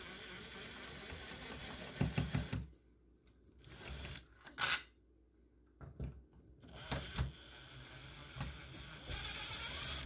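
Cordless drill/driver backing the screws out of an old deadbolt. It runs for a couple of seconds, stops for about three seconds with a couple of clicks, then runs again and gets louder near the end.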